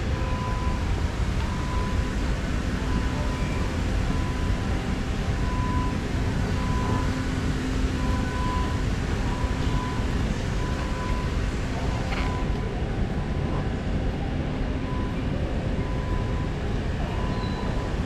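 Underground metro station platform ambience: a steady low rumble of station machinery and air, with a faint high beep repeating about once a second.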